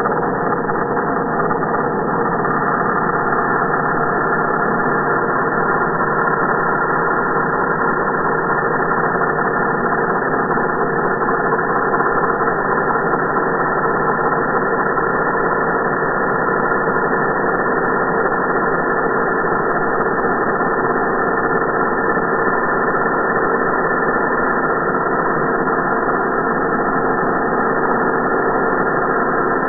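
Electric angle grinder running steadily, a constant motor hum with several steady tones that does not change.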